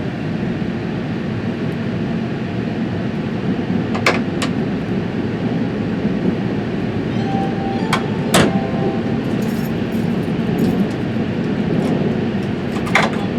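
Train passing over a level crossing: a steady rumble with a few sharp metallic clicks.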